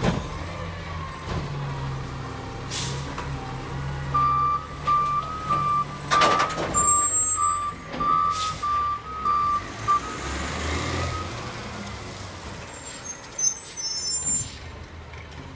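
Heil front-loader garbage truck's diesel engine running while it manoeuvres, its reversing beeper sounding about twice a second for several seconds in the middle, with short sharp air-brake hisses and high squeals near the end.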